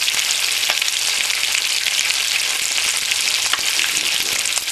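Whole snapper frying in hot oil: a steady sizzle with many small crackling pops.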